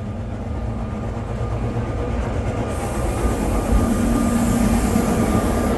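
Sóller tram running on its track and getting steadily louder as it approaches, with a low rumble; a high hiss joins about three seconds in.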